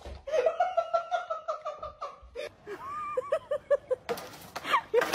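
A person laughing in quick, rhythmic bursts, then a second run of laughter after a short pause, with a couple of knocks near the end.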